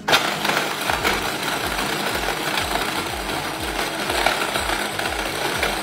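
Small electric mini chopper running, its blades grinding frozen watermelon chunks into slush. It is a steady, loud grinding whir that starts abruptly.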